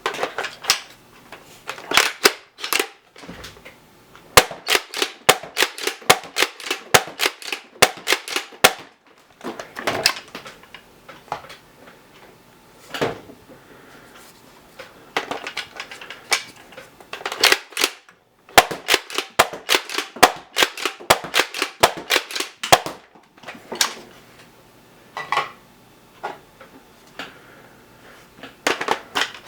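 Toy foam-dart blaster firing, sharp shots in quick runs of several a second with short pauses between the runs.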